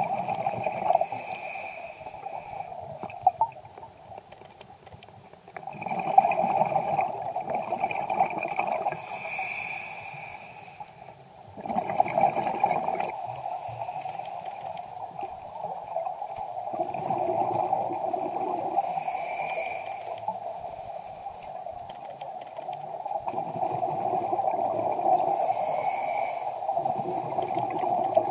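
Scuba diver breathing underwater through a regulator: a rush of exhaled bubbles about every five or six seconds, with a brief hiss of inhalation between them, over a steady underwater hum.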